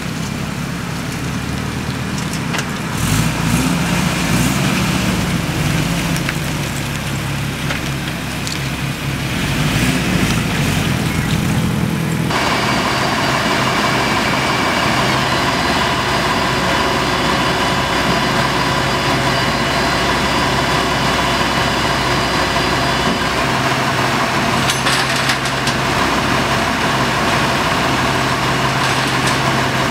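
A vehicle engine running and rising and falling in pitch for about the first twelve seconds. Then a sudden change to a heavy truck engine idling steadily, with a steady high whine over it.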